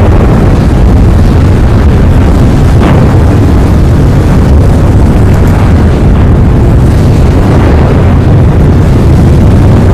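Volcanic crater fountaining lava, heard as a loud, steady, low rumble that never lets up.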